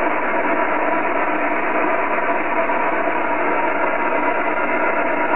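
Steady, loud static hiss with no words in it.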